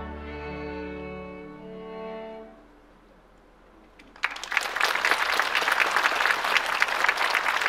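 A string orchestra holds its final chord, which dies away over about two and a half seconds. After a short hush, the audience breaks into applause about four seconds in.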